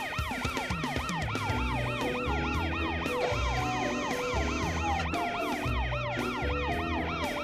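Emergency-vehicle siren in a fast rising-and-falling yelp, about three cycles a second, over background music with a bass line.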